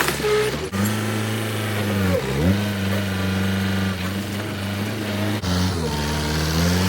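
An engine running steadily, its pitch sagging briefly and recovering about two seconds in and again near the end.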